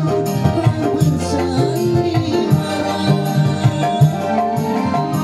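Live dangdut band music played loud through a PA: keyboard melody over a steady hand-drum beat, with a male singer's voice in the mix.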